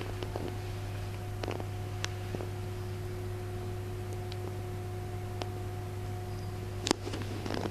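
Steady low electrical hum with a fainter higher steady tone, broken by scattered soft clicks and knocks; a sharper click comes about seven seconds in.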